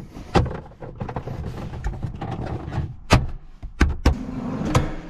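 Audi TT's plastic interior trim panels being pressed and clipped back into place: about five sharp knocks and clicks, most of them in the second half, among rustling and scraping of plastic.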